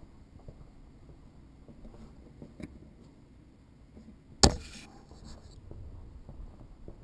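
Quiet movement and handling noise from a handheld camera carried across a concrete basement floor, with faint scattered ticks and one sharp knock about four and a half seconds in.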